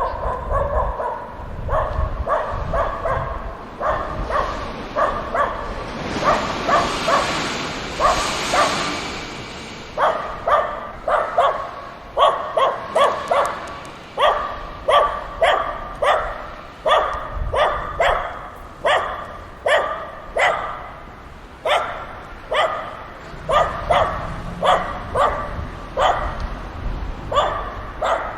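Dogs barking at play: a long run of short, repeated barks, about one to two a second. A rushing hiss rises under the barks about six seconds in and fades about three seconds later.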